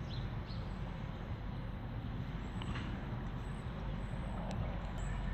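Steady low outdoor background rumble, with a few faint ticks and rustles from two kittens wrestling in wood mulch.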